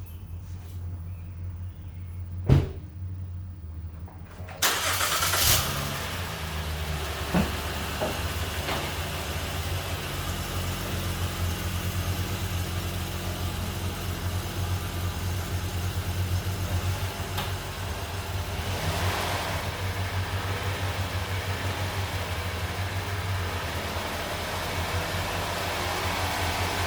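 2013 Acura MDX V6 engine running steadily to circulate freshly changed oil. A sharp click comes about two and a half seconds in, and the running gets louder and fuller from about five seconds on.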